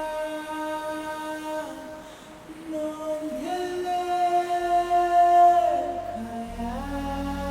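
Music: a voice sings long held notes that glide from one pitch to the next, and a low bass comes in about six and a half seconds in.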